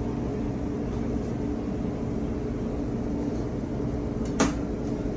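Steady mechanical hum with a low rumble and a few held tones, and one sharp click about four seconds in.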